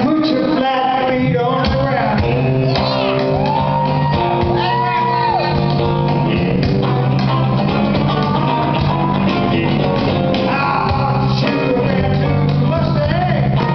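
A live band song: a man singing full-voiced, with strummed acoustic guitar and percussion keeping a steady beat.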